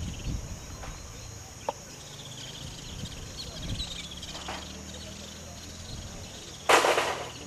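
Outdoor ambience of birds giving repeated short trilling calls over a steady high insect drone. Near the end comes a brief, loud rush of noise, the loudest sound here.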